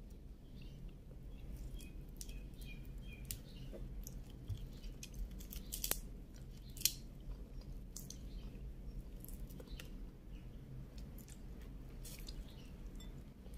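Cooked shrimp being peeled by hand and eaten close to the microphone: irregular crackling clicks of the shells being pulled off, with chewing.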